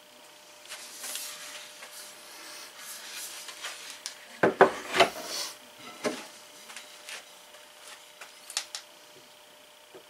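Wooden dowels being handled on a wooden workbench: rubbing and sliding against one another, with a cluster of sharp wooden clacks about halfway through and a few lighter knocks after.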